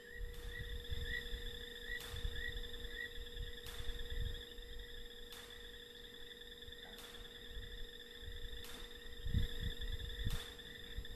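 Steady night chorus of high, trilling chirps over a faint steady hum, with faint regular clicks about every second and a half. Low rumbling noise runs underneath and swells about nine seconds in.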